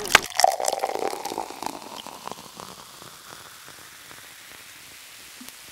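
A small group of people clapping, with one voice cheering, dying away over the first couple of seconds into a steady hiss.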